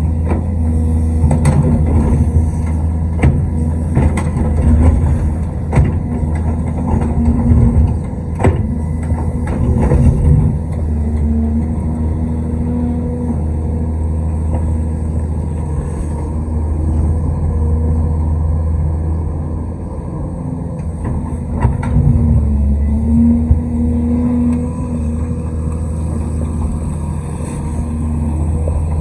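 Large excavator's diesel engine running with a deep, steady drone, with repeated sharp knocks and clanks during the first ten seconds or so and again a little past twenty seconds in.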